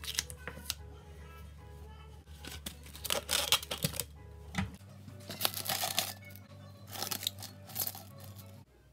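Plastic cling wrap crinkling and rustling in several bursts as it is stretched over a glass jar, over quiet background music.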